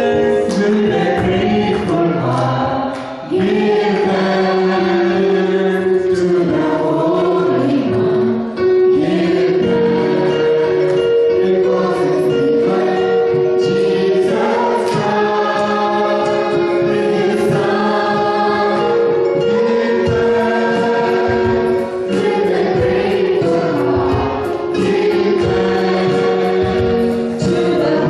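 A mixed group of singers, two women and two men, singing a gospel song together through handheld microphones, several voices on different notes at once, with long held notes.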